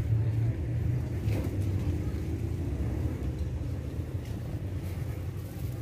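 Outdoor market ambience: a steady low rumble with faint voices of people in the background.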